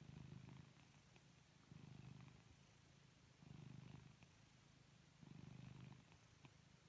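A drowsy orange tabby kitten purring faintly as it dozes off, the purr swelling in four slow pulses about two seconds apart with quiet gaps between.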